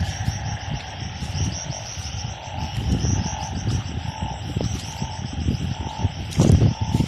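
A chorus of calling narrow-mouthed frogs, with insects trilling higher up. Low rumbling and knocks run underneath, loudest about six and a half seconds in.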